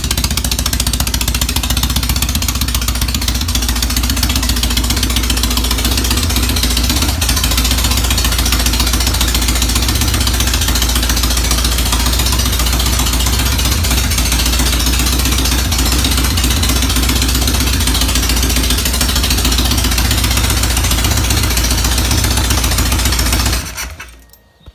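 Freshly rebuilt Norton Commando parallel-twin engine running steadily on its first start-up, then switched off with the ignition key near the end and dying away within about a second.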